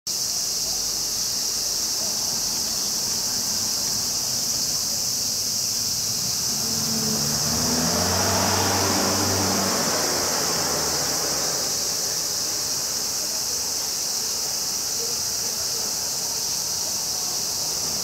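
Steady high-pitched drone of cicadas singing. From about six seconds in, a low hum swells and fades again by about twelve seconds.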